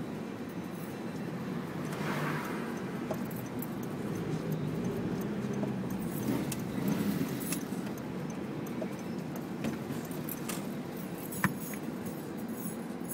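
Car cabin noise while driving slowly along a street: steady engine and tyre rumble, with small rattles and clicks and one sharp click near the end.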